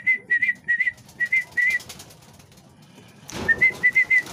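A person whistles short, slightly rising chirps, mostly in pairs, a signal to racing pigeons in their loft. About three seconds in, a rush of flapping wings comes in as the pigeons take off, with more whistled chirps over it.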